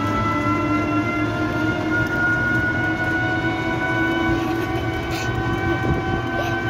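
Auto-rickshaw underway: its motor runs with a steady whine that slowly rises in pitch as it gathers speed, over a low rumble from the road, with a couple of faint rattles.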